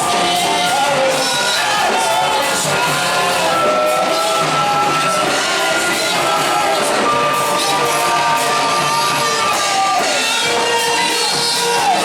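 Church worship music with singing and shouts from the congregation.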